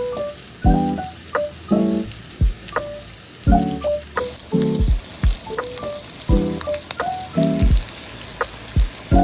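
Food sizzling as it fries, a steady hiss that grows stronger about four seconds in, under background music with a regular beat.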